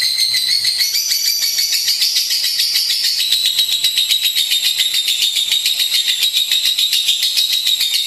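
Lovebird singing a long, unbroken chattering trill: a rapid string of shrill, high notes that never pauses.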